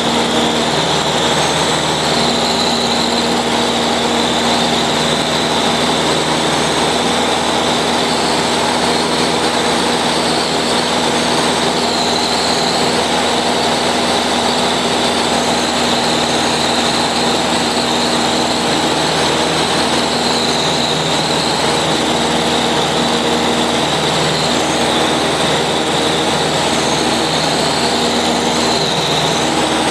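Cessna 150's four-cylinder Continental O-200 engine and propeller running steadily in cruise flight, heard from inside the cabin together with the rush of the airflow.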